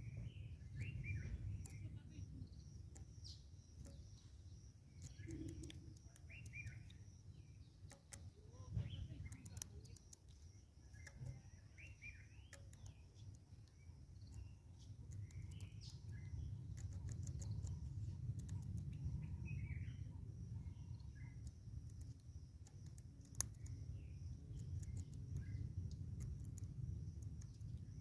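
Wild birds chirping in short, scattered calls on and off, over a steady faint high-pitched insect buzz and a low rumble of outdoor noise, with a few sharp clicks.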